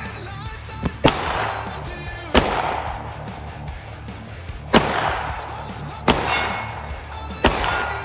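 Five shots from a 9mm Smith & Wesson M&P pistol, fired one to two seconds apart, each with a short echo.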